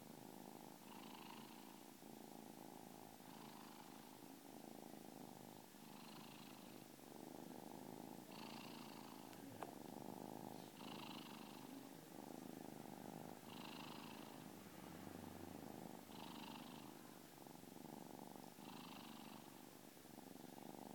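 Kitten purring steadily and faintly, the purr swelling and easing about every two and a half seconds.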